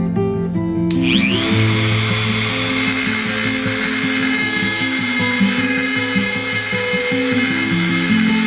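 Background music over a belt grinder running steadily with a high whine, grinding a knife handle to shape.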